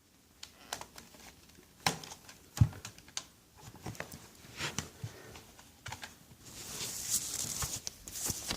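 Scattered small clicks and taps of hands and small tools working on a tablet's plastic casing during disassembly, with a light scraping hiss near the end.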